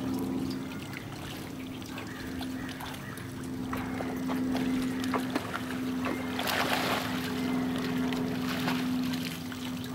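A dog wading and swimming through lake water, splashing as it goes, with a louder burst of splashing about six and a half seconds in. A steady low engine hum runs underneath throughout.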